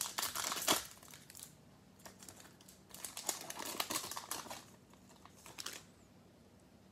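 Foil wrapper of a 2020 Panini Select football card pack being torn open and peeled off the cards, crinkling. There are three spells of crinkling: one at the start lasting about a second and a half, a longer one from about two to four and a half seconds in, and a short one near six seconds.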